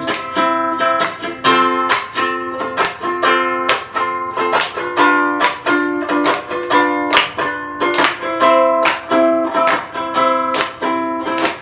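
Ukulele strummed in a steady rhythm, playing a song's instrumental introduction.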